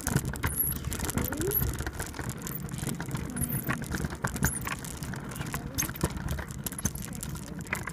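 Trick scooter rolling over street pavement: a steady low rumble from the wheels with many small rattles and clicks.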